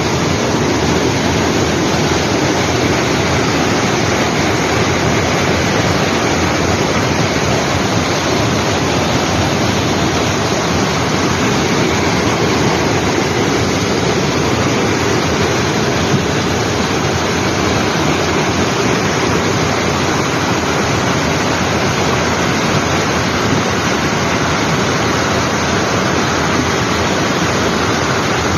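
Fast-flowing water rushing over rocks in a steady, loud, unbroken roar.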